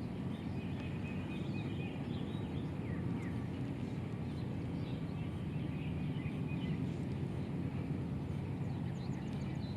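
Outdoor lakeside ambience: a steady low background rumble with faint bird chirps scattered through it.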